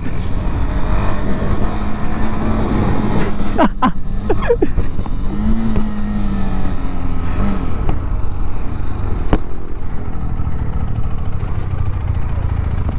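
KTM 390 Adventure's single-cylinder engine running as the bike rides along a dirt track, with heavy wind and road noise on the microphone. The engine note rises and falls about halfway through, and a few sharp knocks come through.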